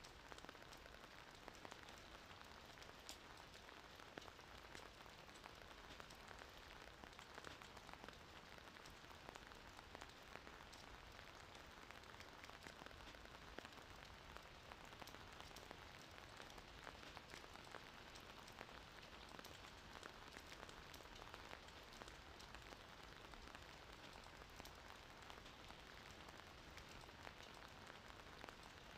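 Near silence: a faint steady hiss sprinkled with light crackling ticks, with no snoring breaths to be heard.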